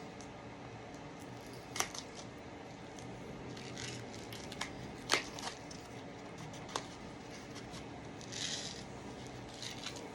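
Quiet handling of a small package of chocolate sprinkles: a few scattered sharp clicks and taps as it is worked open, with a short rustle about eight and a half seconds in.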